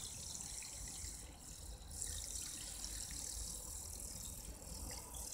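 Handheld battery-powered milk frother running with its whisk spinning in a mug of water: a quiet, steady motor whir with a faint churning of the liquid.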